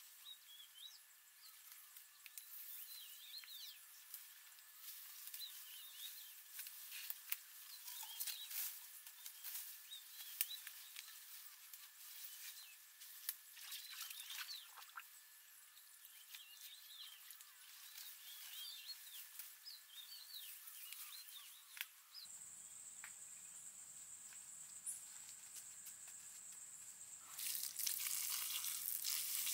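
Small birds chirping over a faint outdoor background, with scattered light clicks and taps. About two-thirds of the way through, the background changes abruptly and a steady high-pitched whine sets in; near the end a louder rushing noise lasts about two seconds.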